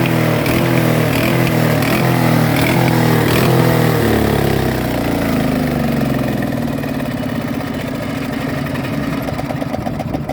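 Super Handy wood chipper's engine running and surging, its speed rising and falling about twice a second, then settling lower and steadier about four seconds in.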